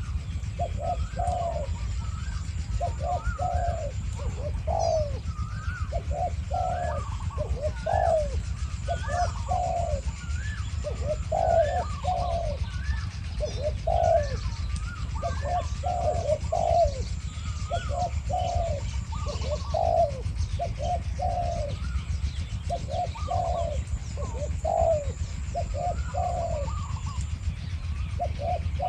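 Spotted doves cooing over and over, a decoy bird and a wild bird calling back and forth in quick short phrases.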